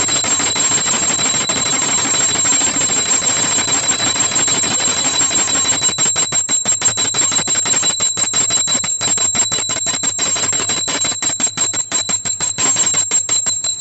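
Puja hand bell rung rapidly and continuously, a steady high ringing over a fast clatter of strokes that turns choppier from about halfway through.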